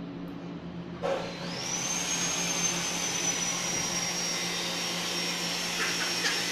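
An electric household appliance motor switches on about a second in, its high whine rising as it spins up and then running steadily over a low hum.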